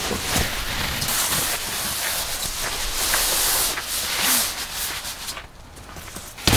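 Folding egg-crate foam sleeping mats being unfolded and laid over a plastic groundsheet: rustling and crinkling with scattered soft scuffs, dying down briefly near the end before a sharp tap.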